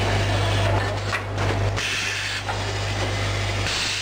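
Automatic cat-litter bag packing machine running: a steady low hum under the clatter of its mechanism, with hisses of compressed air about a second in and again near the end.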